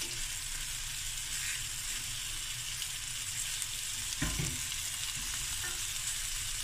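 Chicken drumsticks and thighs sizzling steadily as they brown in their own rendered fat, with no oil added, in a stainless steel pan, while a fork turns the pieces. A brief knock comes about four seconds in.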